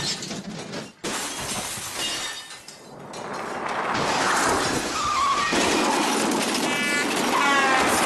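Glass shattering about a second in, with pieces tinkling as it dies away. Then a rush of noise builds, with squealing tones near the end: a car starting to skid, tyres squealing.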